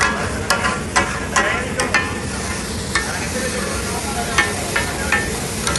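Steel spatulas clacking and scraping on a large flat iron griddle over a steady sizzle of frying. The sharp clacks come about twice a second at first, thin out in the middle, and pick up again near the end.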